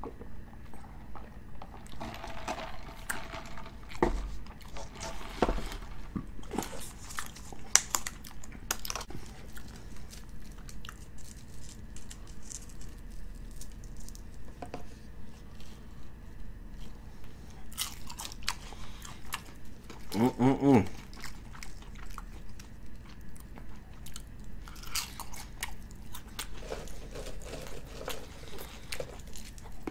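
Close-up chewing and crunching of seasoned French fries dipped in cheese sauce, about two chews a second, with wet mouth sounds. A short hummed "mmm" a little past two-thirds of the way through.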